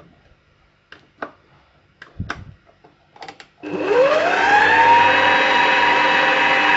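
Stand mixer motor switched on about three and a half seconds in, its whine rising as it spins up and then running steadily as the dough hook kneads flour and warm water into dough. A few light clicks and knocks come before it.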